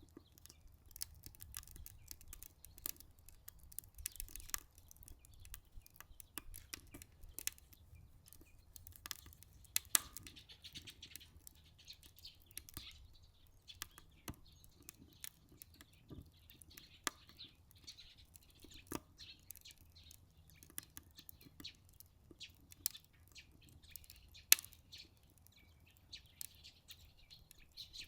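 Wood fire crackling in a Solo Stove Ranger fire pit: irregular sharp pops and snaps, with a louder pop about ten seconds in and another near the end.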